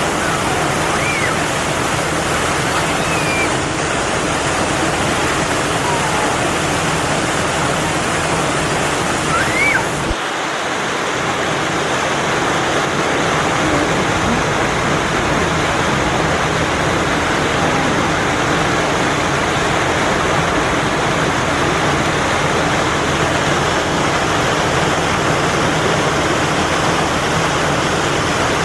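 A steady rushing noise like running water, with a few faint short rising squeaks in the first ten seconds.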